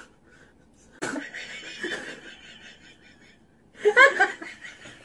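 Women laughing: a breathy fit of laughter about a second in, then a louder, higher burst of laughter near the end. It is squeamish, nervous laughter at the sight of a developed duck embryo in a balut egg.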